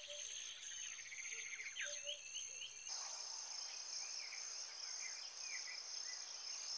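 Outdoor nature ambience: a steady, high insect trilling like crickets, with short bird chirps over it. The background shifts about three seconds in.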